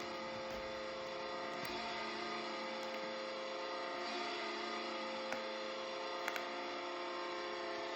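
Carolina Hurricanes' arena goal horn sounding one long, steady blast, played back from a recording.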